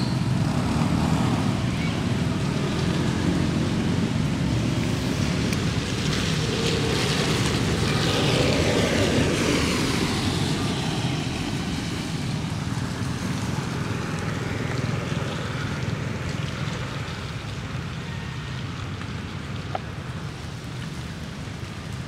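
Road traffic rumble, with one vehicle passing by about eight to ten seconds in, then slowly fading.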